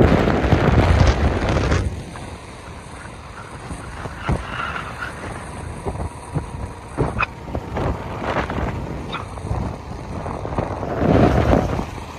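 Wind buffeting the microphone over the running engine and road noise of a motorcycle on the move, gusting loudest in the first two seconds and again near the end.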